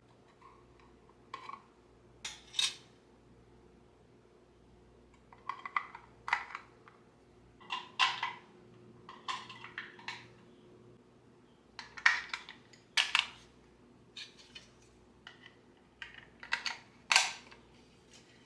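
Irregular sharp clicks, clinks and knocks of small hard objects being handled and set down, some in quick clusters.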